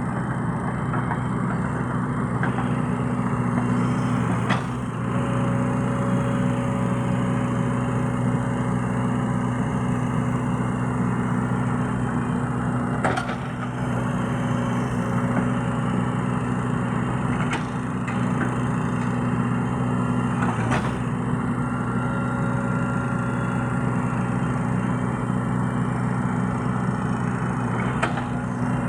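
Excavator diesel engine running steadily, with a few sharp clicks or knocks scattered through.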